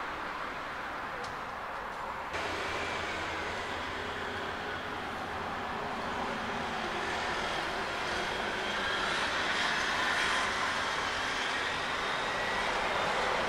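Steady noise of road and rail traffic, stepping up about two seconds in and growing a little louder in the second half, with a faint high whine drifting in pitch near the end.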